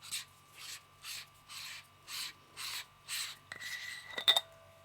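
Haikelite HG50 flashlight head being unscrewed from its body, the greased threads rasping in short, even strokes about two a second as the head is turned. A few sharp clicks come about four seconds in.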